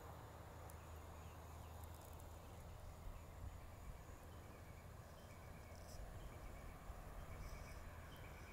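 Faint evening outdoor ambience: insects chirping in short repeated calls over a low steady rumble.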